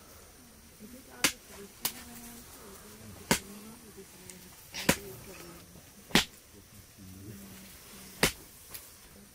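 Sharp slaps of hands striking down on a rug during a children's game played with small pieces, six of them a second or two apart. Quiet children's voices murmur between the slaps.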